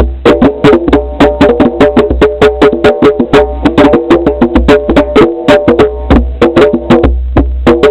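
Music: a quick run of struck, pitched percussion notes, several a second, over a steady low drone.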